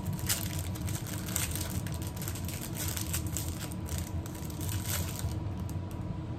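Plastic packaging crinkling and tearing as it is opened by hand: an irregular run of crackles and rustles over a steady low hum.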